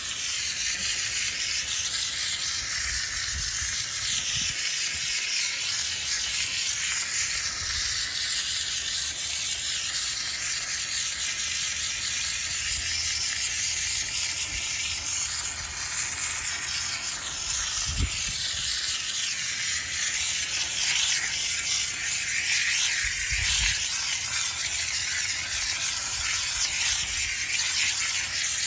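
Handheld steam cleaner jetting steam from its nozzle onto a car's interior door panel: a steady, loud hiss.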